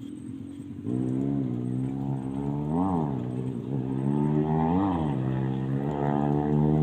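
An engine starts running about a second in and is revved up and back down three times, roughly every two seconds.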